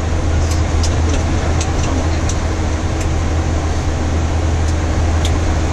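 Steady flight-deck noise of a Boeing 737-800: a loud low hum under an even rush of air, with several light clicks from switches on the overhead panel.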